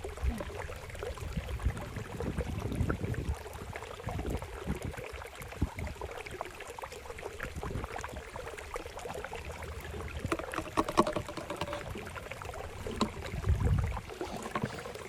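Motor oil glugging and trickling from a bottle through a funnel into a lawnmower engine's oil fill. A low bump of handling comes near the end.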